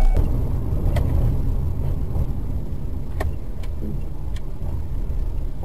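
Car driving along a highway, heard from inside the cabin: a steady low rumble of engine and tyres, with several faint clicks.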